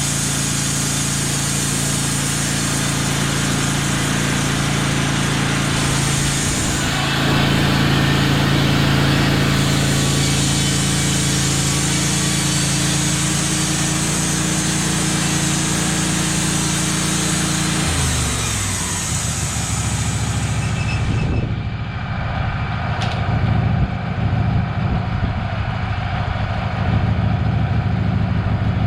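An engine running steadily at speed, then dropping in pitch about two-thirds of the way through, followed by a rougher, lower running sound.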